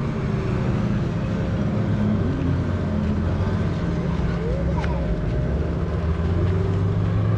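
Outboard motorboat engines running steadily on the lake, a low hum that grows stronger about halfway through.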